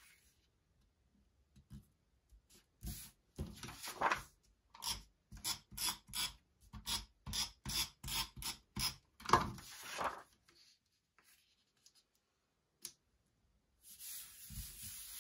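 Sheets of scrapbook paper handled on a cutting mat: a run of short, quick rubbing strokes, about two a second, as paper is shuffled and slid into place. Near the end comes a longer soft rub as a hand smooths a sheet flat.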